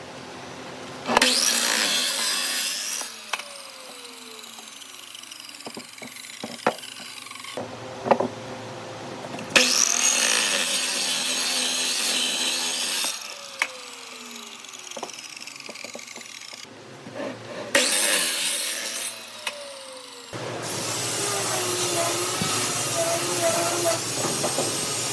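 A power tool cutting wood in several spells, its motor whining up as it starts and running down between cuts, with a few knocks of wood in the pauses.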